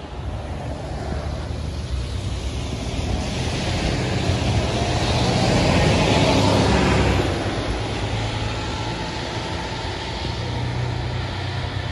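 New Flyer XD60 articulated diesel bus driving past: a steady low engine drone with tyre hiss on the wet road. It grows louder to a peak about six seconds in, then fades as the bus moves away.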